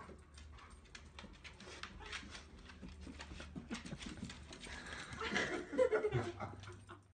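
A dog's claws clicking and scrabbling on a hardwood floor as it spins round chasing its tail, with a louder vocal sound about five to six seconds in.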